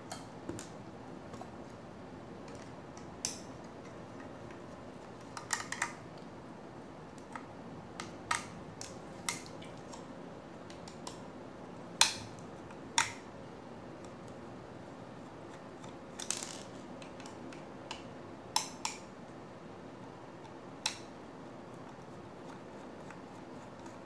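A dozen or so sharp little metal clicks and taps, irregularly spaced, from a small screwdriver backing out the four screws of a laptop hard drive's metal mounting bracket.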